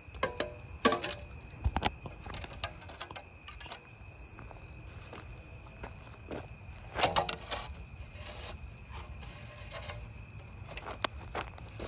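Steady chorus of crickets trilling, with scattered rustles and scuffs in dry leaf litter, the loudest about a second in and around seven seconds in.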